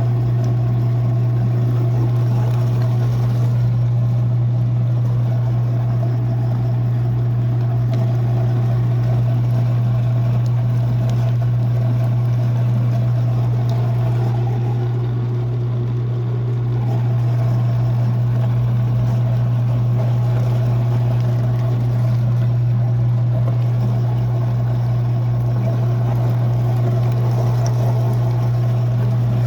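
A #32 Universal meat grinder driven by a belt from a 1 HP Leeson electric motor, running with a steady hum; the sound dips slightly about halfway through.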